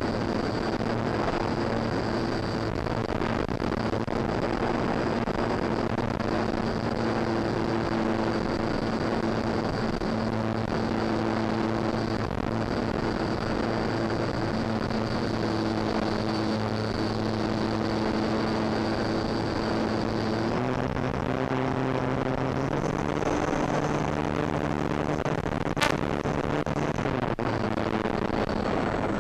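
Electric motor and propeller of a Durafly Tundra RC plane running steadily in flight, heard from the onboard camera: a steady hum with a high whine over wind rush. The pitch shifts a few times in the last third, and there is a single sharp click near the end.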